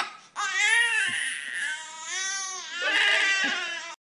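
Newborn baby crying in two long, wavering wails that cut off suddenly near the end.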